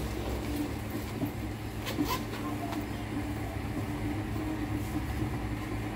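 Steady low mechanical rumble and hum, with a few light clicks about two seconds in.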